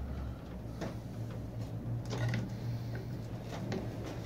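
Light, irregular clicks and ticks of a screwdriver turning the screws of the hose clamps that hold an encoder to a dome drive motor, gradually tightening the clamps.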